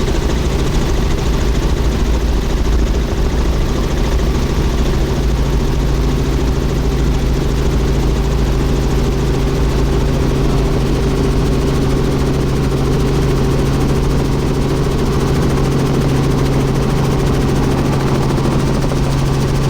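Helicopter in flight heard from inside the cabin: a steady, loud drone of turbine and rotor with a low rumble and a constant hum.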